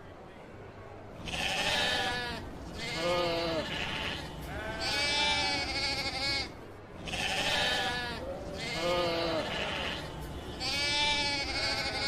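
Sheep bleating: six bleats, starting about a second in, in two matching sets of three, the longer ones quavering.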